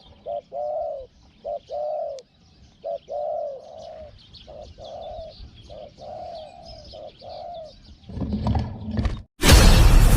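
Spotted dove cooing, a series of short and drawn-out low coos, with small birds chirping faintly in the background. Near the end a loud blast of music cuts in.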